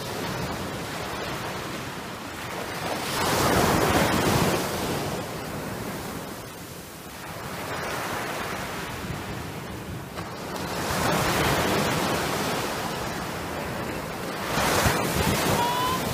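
Small surf breaking and washing up the sand, swelling three times as waves come in and falling back between them.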